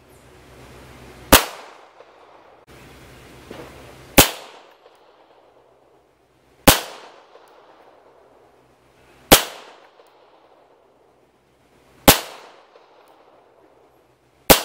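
Six single pistol shots from full-size all-metal pistols, a CZ 75 BD and then a Beretta 92G, fired slow and aimed about two and a half seconds apart. Each is a sharp crack with a short ring-out.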